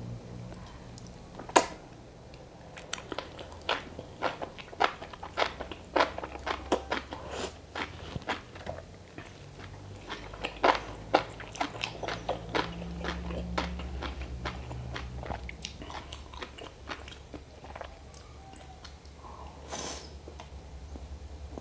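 Close-miked eating: a run of crisp bites and wet chewing crunches, one sharp bite about a second and a half in, then many quick crunches that thin out near the end.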